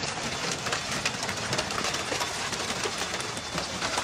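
A heavy storm downpour striking parked cars and pavement: a dense, even clatter of many small hits.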